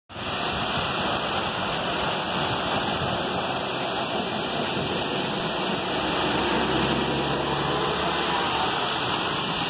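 Steady rush of heavy rain and running floodwater in a flooded street. A city bus ploughs through the deep water, throwing up a wash of spray.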